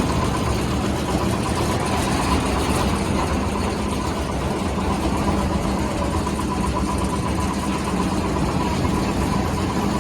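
Borewell drilling rig's engine running steadily, a loud even machine drone with a constant hum.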